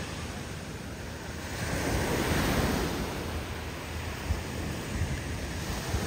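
Ocean surf breaking and washing up the beach, with wind rumbling on the microphone; the wash swells louder about two seconds in, then eases.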